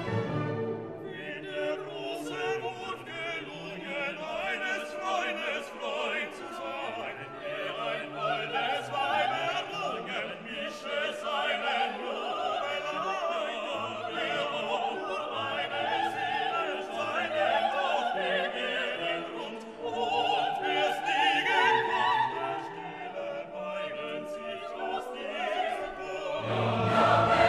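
Orchestral classical music with operatic singing.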